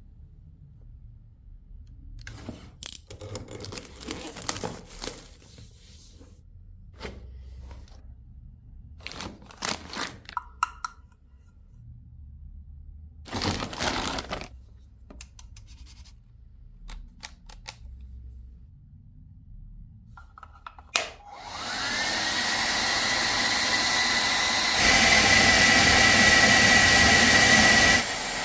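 Scattered clicks and handling knocks, then a click as a Xiaomi Mi Ionic H300 hair dryer switches on. Its motor whine rises and settles into a steady blowing noise, which jumps louder about three-quarters of the way through and drops back near the end.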